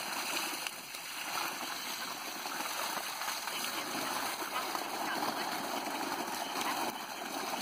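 Pump-fed water gushing steadily out of an upright PVC pipe and splashing onto the ground.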